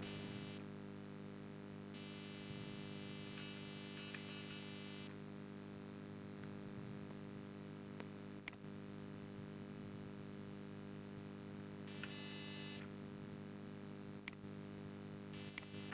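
Quiet room tone: a steady low electrical hum with a few patches of hiss, and a few faint clicks of a computer mouse.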